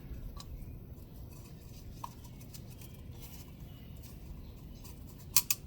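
Faint handling noises over a steady low hum: a few light ticks, then two sharp clicks close together near the end, as the oil filter housing's O-rings and parts are handled.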